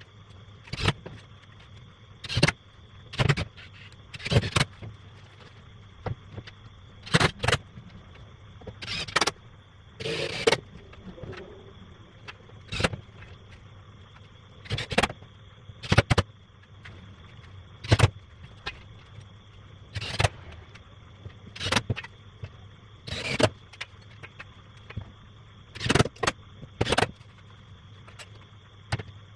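CNC router cutting wood: the spindle runs with a steady high whine and a low hum, broken every second or two by short, loud bursts as the bit cuts.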